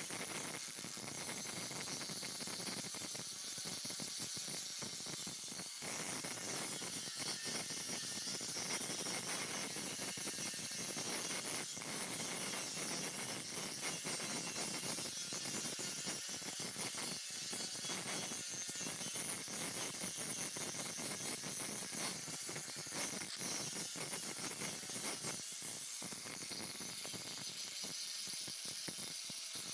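Stick (arc) welding arc burning steadily: a continuous crackling hiss with fine irregular pops.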